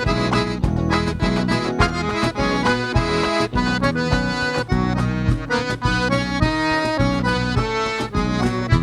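Live forró band playing an instrumental introduction led by accordion, with drums keeping a steady beat.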